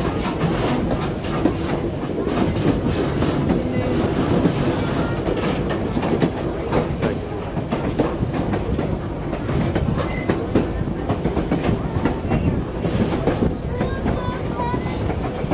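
Passenger train running on its track: a steady rumble of the coach, with the wheels clicking repeatedly over rail joints.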